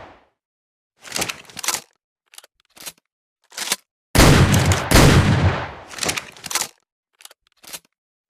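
Double-barrel shotgun sound effect: short metallic clicks and clacks of the gun being handled, then both barrels fired, two loud shots about 0.7 s apart, each with a long fading boom. More clicks follow near the end.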